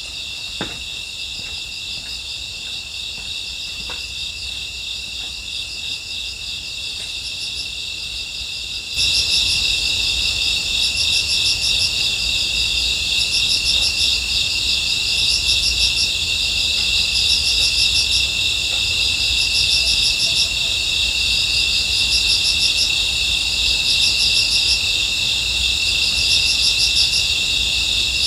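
Night insect chorus: several steady high-pitched trills, with one insect singing short pulsed bursts every second or two. The chorus jumps louder about nine seconds in.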